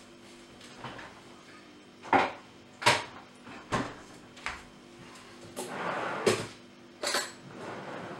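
Off-camera kitchen clatter: about seven sharp knocks and clunks of things being handled and set down on a kitchen counter, with a short scraping rush between them.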